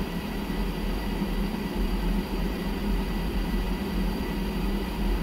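Pentair MasterTemp 400 gas pool/spa heater running just after ignition: a steady hum and rush from its combustion blower and burner, with a faint high whine. This is the heater firing and holding its burn.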